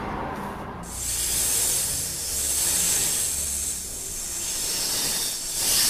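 An imitated snake hiss: a long 'sss' that begins about a second in and swells and fades several times.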